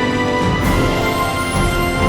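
Music: a theme-style piece with many held notes over a steady low pulse, with one brief sharp hit about half a second in.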